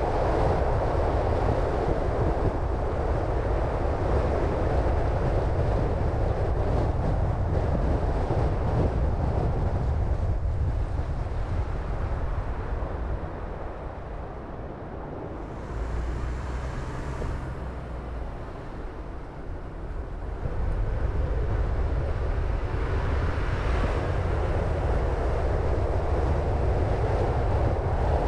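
A car driving: steady road, wind and engine noise that eases off for several seconds about halfway through, then comes back up.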